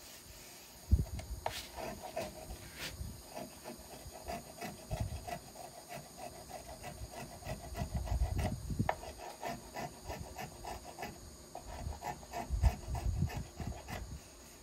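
Small hand plane shaving the arch of a wooden violin plate in short repeated rasping strokes, smoothing out high spots. A sharp knock comes about a second in.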